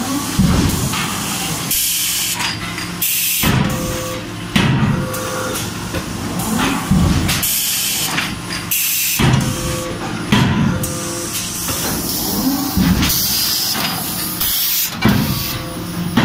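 CNC hydraulic die forging hammer at work, landing heavy blows about every one and a half to two seconds, with short hissing bursts between the blows.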